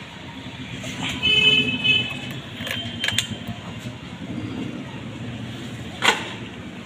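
A short, high horn beep about a second in, then two sharp clicks, over a low steady hum.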